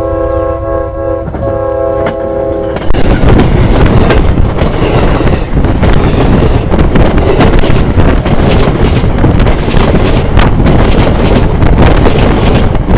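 Amtrak Silver Star passenger train's locomotive horn blowing a steady chord, with a brief break about a second in, which stops about three seconds in as the train reaches the track overhead. Then loud wheels on the rail: a heavy rumble with rapid clicking and clatter as the cars roll over, heard from between the rails beneath the train.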